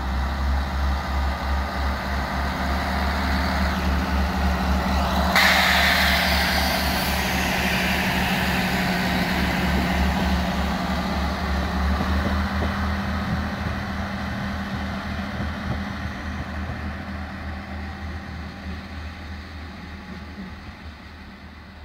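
HŽ series 7122 diesel railcar passing close by, its diesel engine running with a steady pulsing drone and hum. A sudden burst of noise comes in about five seconds in, and the sound then fades slowly as the railcar pulls away.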